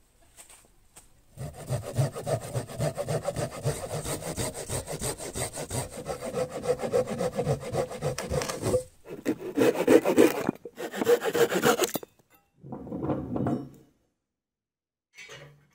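Homemade bushcraft saw with a coarse 3 TPI carbide pruning blade cutting through a fallen log in fast back-and-forth strokes, with short breaks near 9 and 11 seconds in, then a shorter bout of sawing. A brief sound near the end.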